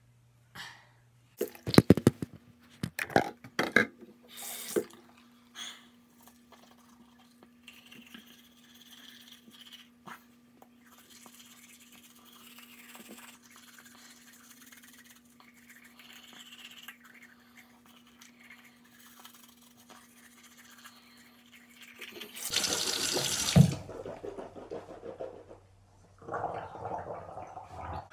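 Toothbrushing. A few sharp clicks and knocks come first as the toothpaste tube is handled, then the soft repeated scrubbing of a toothbrush on teeth. Near the end there is a loud rush about a second long, and a shorter, quieter burst follows.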